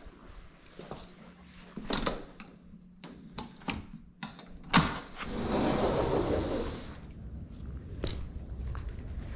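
Scattered clicks and knocks of something being handled, a sharp clunk about five seconds in, then about two seconds of rushing noise.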